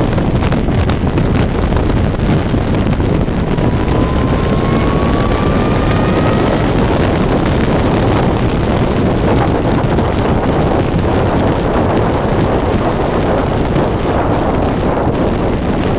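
Racing vehicle at speed on track: heavy wind noise on the microphone over the engine, whose faint note rises in pitch as it accelerates from about four to six and a half seconds in.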